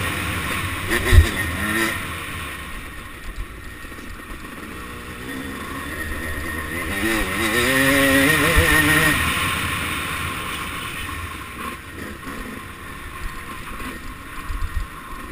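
1989 Suzuki RM250 two-stroke single-cylinder engine revving up and down under race riding, climbing to a loud high rev in the middle and then easing off. A sharp thump comes about a second in.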